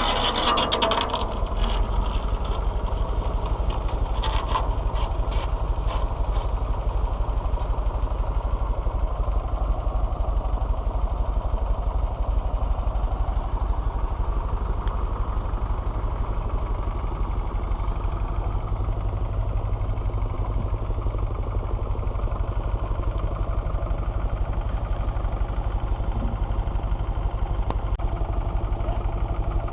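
Fordson Power Major tractor engine running steadily at a low, even pulse, with some clanking in the first few seconds.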